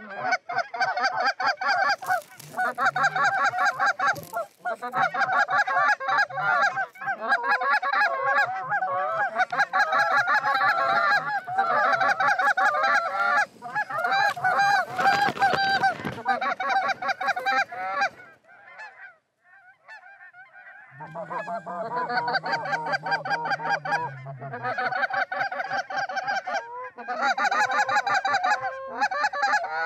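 Canada goose calls blown hard and fast, several at once: a nearly continuous run of loud honks and clucks meant to turn passing flocks toward the decoys. It breaks off for a couple of seconds about two-thirds through, then resumes. There is a brief rush of noise near the middle.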